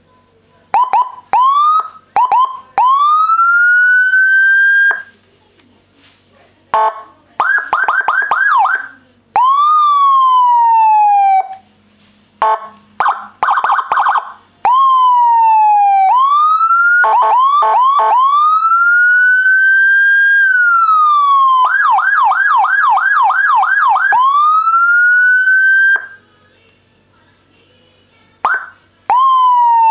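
Electronic vehicle siren on a keypad controller, switched between tones with short gaps: quick rising chirps, a slow wail rising and falling, and fast yelp warbles of about three to four cycles a second. It cuts off abruptly a few times and starts again on another tone.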